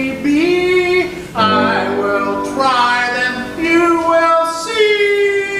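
Men singing a duet in long held notes that slide between pitches, with instrumental accompaniment.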